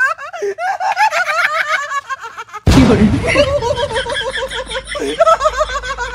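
A man laughing hard in high-pitched, rapid cackles. About two and a half seconds in, the sound cuts abruptly to another take, with a low wind rumble under further laughter and voice.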